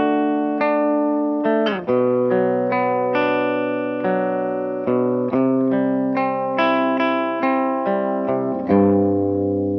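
Electric guitar with a clean-ish tone, recorded through an sE X1 A condenser microphone. Single notes are picked about every half second and ring into each other as arpeggiated chords, with a chord change about two seconds in and again near the end.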